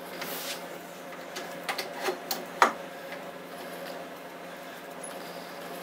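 A few short metallic clicks and knocks as a brake caliper holding new pads is fitted over the brake disc of a scooter's front wheel, the loudest about two and a half seconds in, over a steady low hum.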